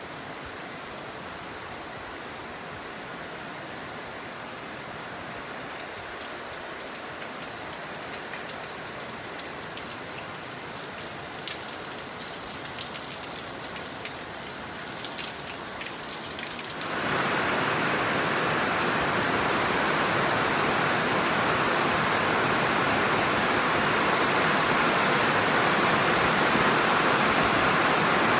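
Rain falling in a steady hiss, with scattered sharp drop hits a little past the middle. About two-thirds of the way through, the rain noise suddenly jumps much louder and denser, like a heavy downpour.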